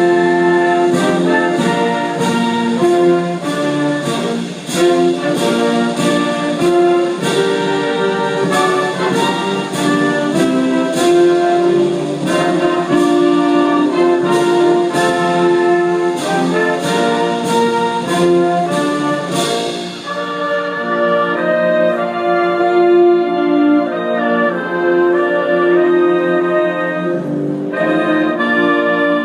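Brass band music, trumpets and trombones carrying the tune over a steady beat of drum or cymbal strokes about twice a second; the percussion drops out about two-thirds of the way through and the brass carries on more softly.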